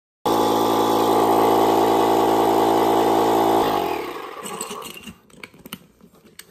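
Battery-powered Be Well Aero electric paddle board pump running steadily in deflate mode, sucking the air out of the board with a loud motor hum. About three and a half seconds in the motor stops and winds down, leaving a few faint clicks of handling.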